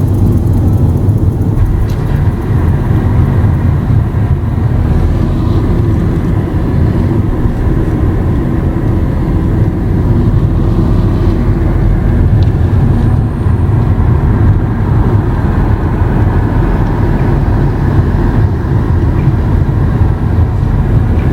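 Vehicle driving at highway speed: a loud, steady low rumble of engine and tyres on the road, heard from inside the vehicle.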